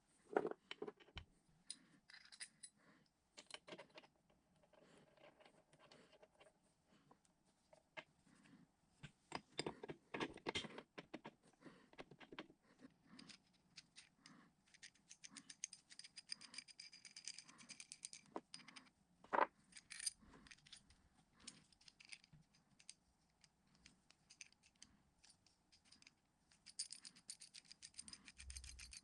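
Small steel parts (washers, nuts, a threaded stud and a rod) clinking and scraping as they are handled and set down on a wooden workbench: scattered light clicks with a few sharper clinks.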